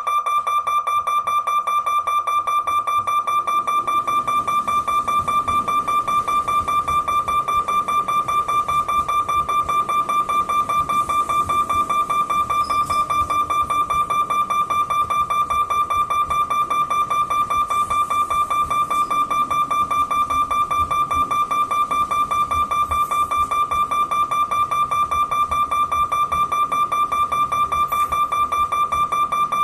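Level-crossing warning bell ringing continuously, one fixed pitch struck rapidly and evenly, with no change in pitch or tempo. From a few seconds in, the low rumble of the electric local train running past the crossing rises underneath it and stays.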